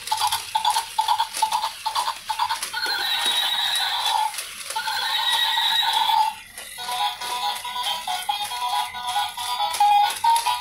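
Battery-operated toy horse walking with its mechanism clicking, while its speaker plays an electronic tune and a horse whinny. From about two-thirds of the way in, the tune turns to quick repeated short notes.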